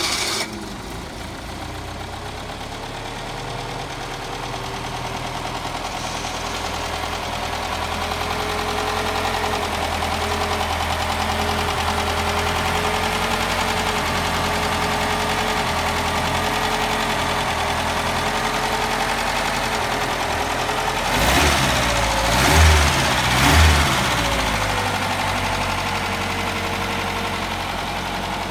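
Mercedes-Benz 190SL's 1.9-litre four-cylinder engine idling steadily, then revved with three quick blips of the throttle a little past the middle, each rising and falling back before it settles to idle again.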